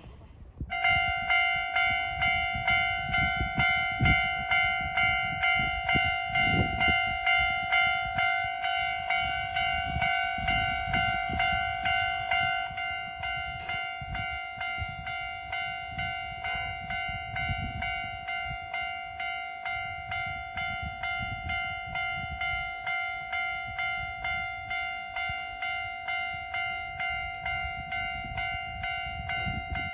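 Level-crossing warning bell ringing in a steady repeating ding-ding, starting about a second in and growing somewhat quieter about halfway through, with a low rumble underneath. It signals that a train is approaching the crossing.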